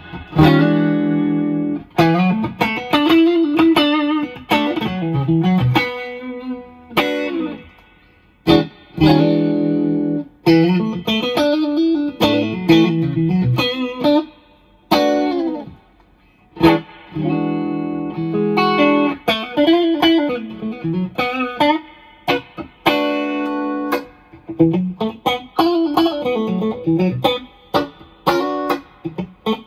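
Strat-style electric guitar with a Suhr ML single-coil pickup set, played through a small combo amp on a clean tone: picked chords and single-note phrases with short pauses between them.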